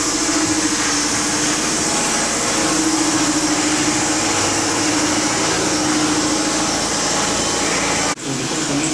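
A loud, steady rushing noise from a machine, cutting out for an instant near the end.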